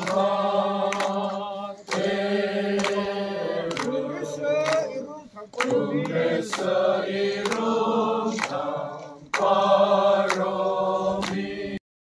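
A congregation of men and women singing a hymn together without accompaniment, in phrases with short breaks between them; the singing cuts off abruptly near the end.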